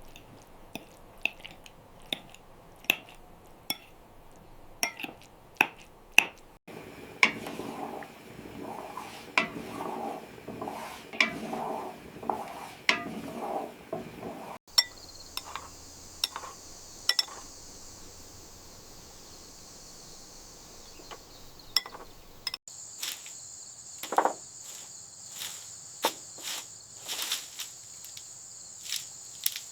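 A run of sharp knocks and clinks, like dishes and utensils being handled, with crickets chirring steadily in the background through the second half.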